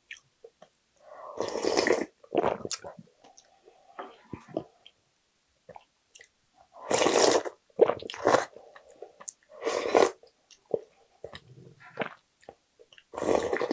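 Several loud slurps of broth with noodles and rice taken off a wooden spoon, with wet chewing between them.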